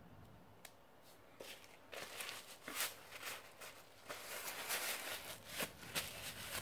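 Faint irregular rustling and scraping with a few light clicks, starting about a second in and growing busier: close handling noise.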